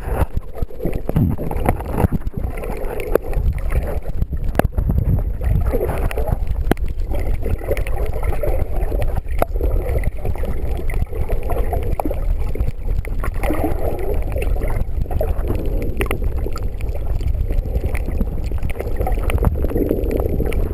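Underwater sound picked up by a camera held below the surface while snorkeling: a steady low rumble of water with irregular gurgling swells every few seconds and scattered sharp clicks.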